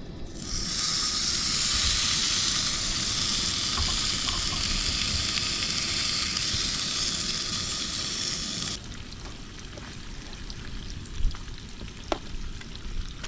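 Bacon sizzling and frying in a pan, a loud steady hiss that cuts off suddenly about nine seconds in. After that come a few light clicks and knocks.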